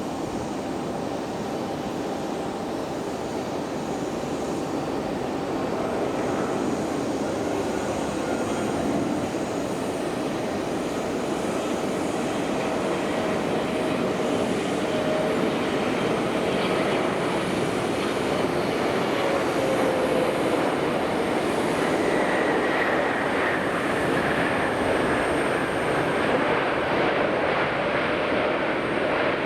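Jet airliner engines running: a steady rumble with a faint whine that slowly drops in pitch, gradually growing louder.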